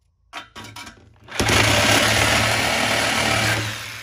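BMW 328i's N52 straight-six starting: the starter cranks in quick pulses for about a second, then the engine catches with a loud flare about 1.4 s in and drops back toward idle near the end.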